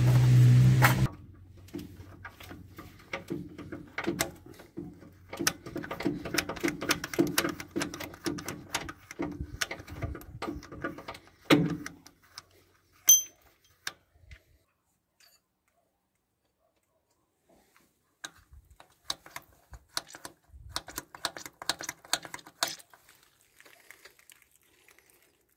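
A loud low drone cuts off about a second in. It is followed by irregular clicking and tapping of hand and tool work on the T-40 tractor's diesel fuel injection pump and its line fittings, with one sharp metallic clink near the middle, a few seconds of near silence, and more clicking near the end.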